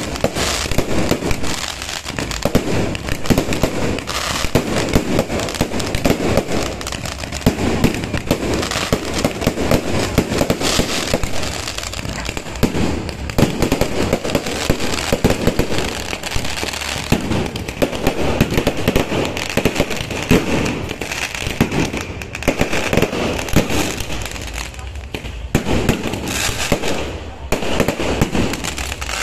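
Fireworks and firecrackers going off without a break: rapid, overlapping bangs and crackling from aerial shells and strings of firecrackers.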